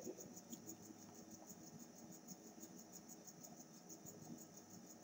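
Near silence: faint room tone with a faint high pulse repeating evenly about three times a second.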